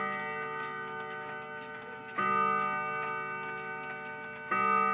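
Howard Miller 612-439 mantel clock striking twelve: two slow, evenly spaced strikes, each ringing on and slowly fading, with the ringing of the previous strike dying away at the start. The clock's ticking runs faintly underneath.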